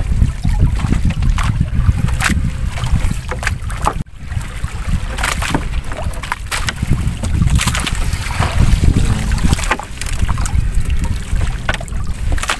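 Wet gill net and seawater splashing and slapping as it is hauled by hand over the side of a small fishing boat. A steady low rumble of wind on the microphone runs underneath, with a brief break about four seconds in.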